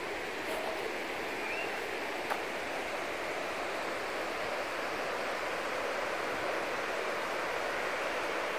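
Steady rush of flowing water, growing slightly louder, with a faint click about two seconds in.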